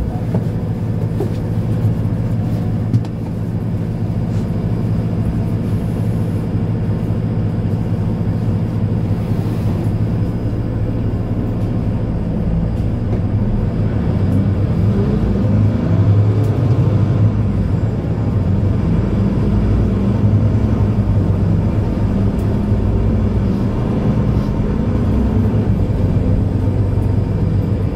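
Mercedes-Benz Citaro C2 Ü Hybrid city bus engine running with a steady low hum. Pitch glides rise and fall in the middle.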